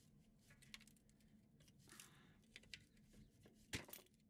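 Near silence with faint scattered clicks and taps of an adjustable wrench and a square steel fill plug being unscrewed from a Dana 44 front differential housing; the sharpest click comes shortly before the end.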